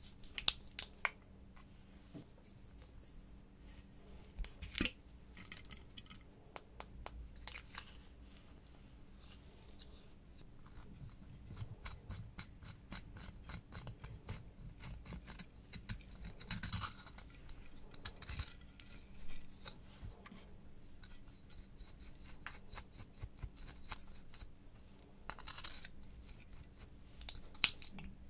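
A small metal tool scraping and prying pressed eyeshadow out of plastic compacts: irregular scratching with many sharp clicks and taps, and a few louder clicks now and then.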